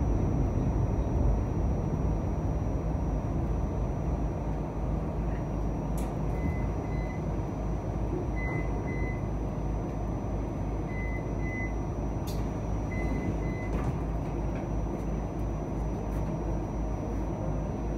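Cleveland RTA Green Line light-rail car running along the track, a steady rumble of wheels and running gear. From about six seconds in, short high beeps sound in pairs four times over roughly eight seconds, with two sharp clicks among them.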